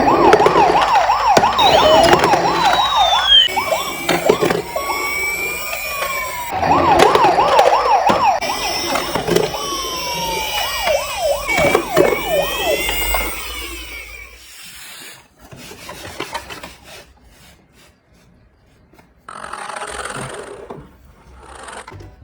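Several emergency-vehicle sirens sounding at once, fast yelping wails with slower rising and falling wails over them. After about fourteen seconds they stop, leaving scattered faint clicks and a short rushing noise near the end.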